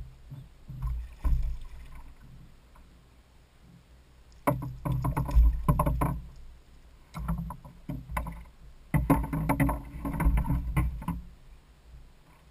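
A hooked red drum splashing and thrashing at the surface beside a kayak as it is landed, in two loud bouts of crackling splashes, the first about four seconds in and the second near two-thirds of the way through.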